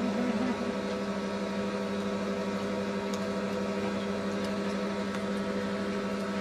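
Steady electric hum of a spa pool's pump motor running.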